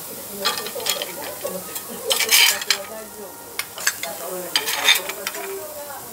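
Steel teppanyaki spatulas scraping and clanking on a steel griddle over a steady sizzle of prawns and abalone frying. There are several sharp scrapes, the loudest about two seconds in and another near five seconds.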